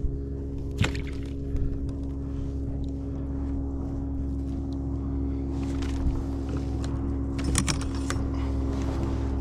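A steady low mechanical hum holding several fixed tones, with a few sharp clicks about a second in and again near the end.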